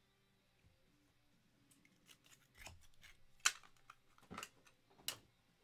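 Trading cards and rigid plastic card holders being handled and set down on a table: light clicks and rustling, then three sharp taps about a second apart in the second half.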